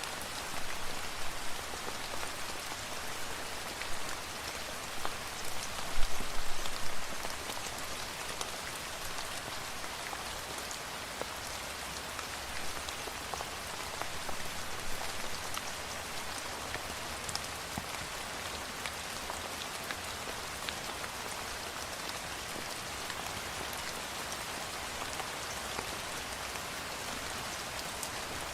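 Steady rain falling, heavier and more uneven for the first several seconds, with a brief louder spell about six seconds in, then settling into an even patter.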